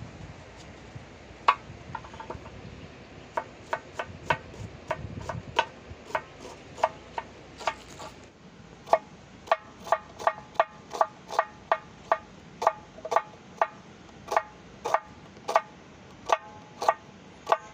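Kitchen knife chopping an onion on a small wooden block set on a steel tawa: sharp knocks, each with a brief ring. They are sparse and uneven at first, then settle into a steady run of about two to three chops a second from about halfway through.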